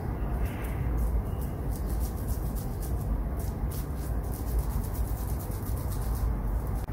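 Wet hands squeezing and pressing soft minced-chicken kebab mixture, a run of small irregular squelching ticks over a steady low rumble.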